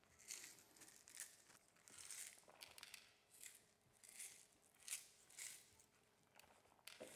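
Salt being sprinkled by hand over sliced aubergines in a colander: a series of faint, short, gritty rustles as the grains are rubbed between the fingers and fall onto the slices.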